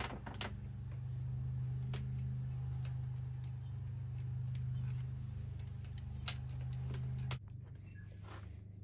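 Bicycle chain being handled on the bike, its steel links giving a few scattered sharp clicks and rattles, over a steady low hum that cuts off near the end.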